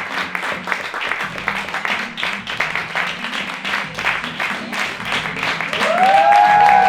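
Audience applauding at the end of a live theatre performance, with steady music playing underneath. Near the end a brief rising-then-falling pitched sound, a whistle or cheer, rises above the clapping and is the loudest moment.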